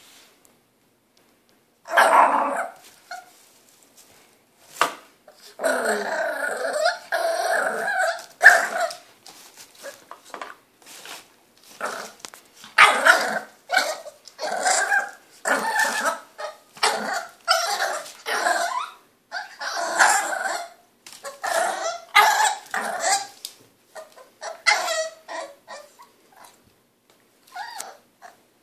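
A three-month-old French bulldog puppy barking and growling in a long run of short outbursts, a few drawn out for a second or more: impatient demand barking.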